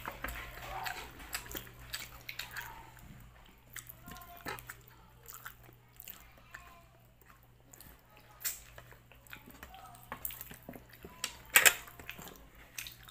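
Close-up eating sounds: chewing and lip-smacking mixed with small clicks of fingers picking food off a plate. One sharper click comes near the end.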